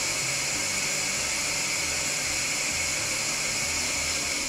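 Cylinder boring machine taking a cutting pass through an engine cylinder sleeve: a steady high hiss of the spindle and cutter at work.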